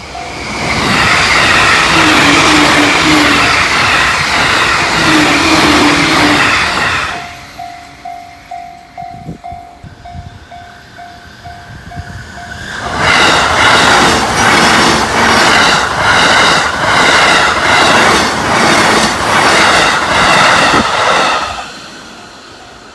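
Two Joban Line trains pass a level crossing at high speed, one after the other. Each is a loud rush of wheels on rail, the first lasting about six seconds and the second about nine, and the second has an even rhythmic clatter of wheelsets over the rails. Between and after the trains, the crossing's warning bell dings about twice a second.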